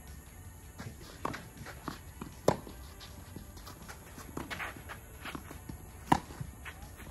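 Tennis rally: a racket strikes the ball sharply twice, about three and a half seconds apart, with fainter ball hits, bounces and shoes scuffing on the court in between.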